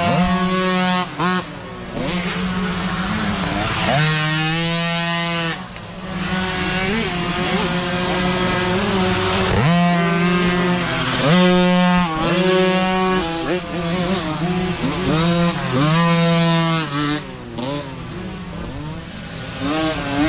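Small youth dirt bike engines revving hard along a dirt trail, the pitch climbing and dropping again and again as the riders throttle up and shift.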